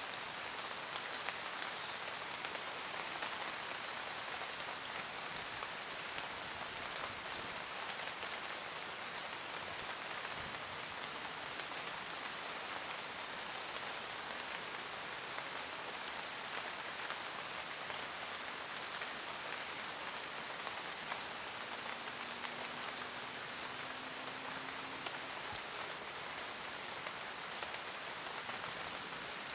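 Steady rain falling on forest leaves: a continuous hiss with many scattered, sharp ticks of single drops.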